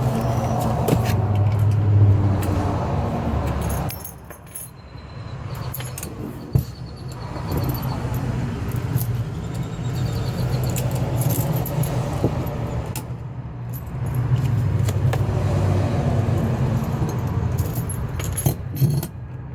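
Keys jangling and small metallic clicks as a mechanical code lock and its keys are handled, over a steady low hum that drops away twice.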